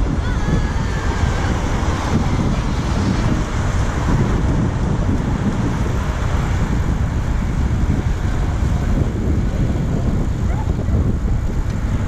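Wind buffeting the microphone of a helmet-mounted GoPro while cycling: a steady low rumble with no horn blasts.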